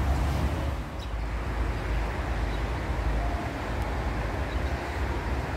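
Steady outdoor rushing noise with a deep rumble underneath, even throughout, with no distinct events.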